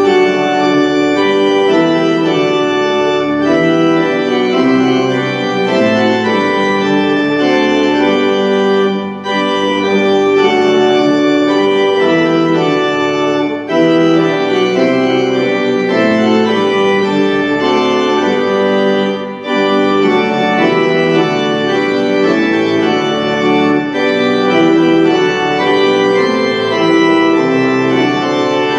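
Organ playing a hymn in sustained chords, with brief breaks between phrases.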